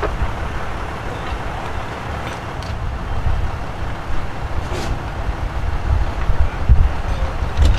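Wind buffeting the microphone: an uneven low rumble over a steady outdoor hiss, with a few faint clicks.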